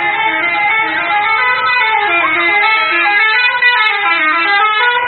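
Bus 'telolet' musical horn playing a melody: a quick run of short horn notes that step up and down in pitch.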